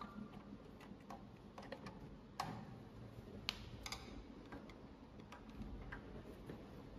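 Faint, scattered light clicks and taps at irregular intervals, about eight in all, the sharpest about two and a half seconds in: hands and a screwdriver handling a printer's head carriage, its plastic ink-bottle caps and sheet-metal housing.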